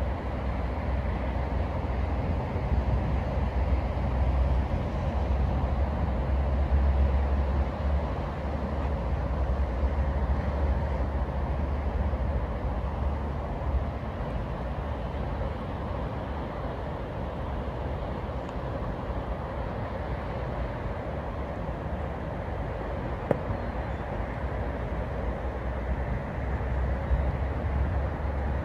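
Atlantic surf rushing steadily, mixed with a heavy low wind rumble on the microphone.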